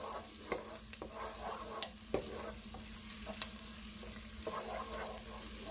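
Chopped onion and garlic sizzling gently in olive oil over medium-low heat, stirred with a wooden spoon that clicks sharply against the pot a few times.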